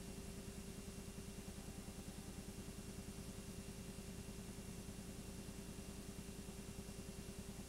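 Steady mechanical whirring with a fast, even pulse that never changes, typical of a home-movie film projector running while the reel is transferred to video.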